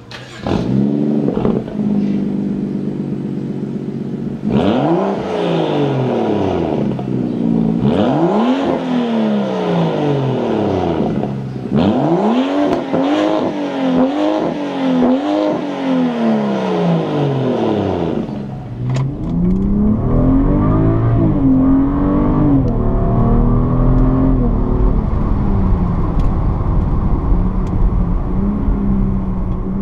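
BMW 335i's 3.0-litre turbocharged inline-six with an AWE Tuning Touring Edition straight-through exhaust and performance mid pipe, revved several times while parked, the note rising and falling with each blip. Then, from about two-thirds of the way in, it is heard from inside the cabin while driving: a deeper steady drone with the engine note climbing and easing.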